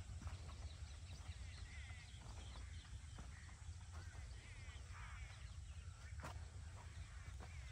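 Faint outdoor ambience: scattered short animal calls and chirps over a steady low rumble.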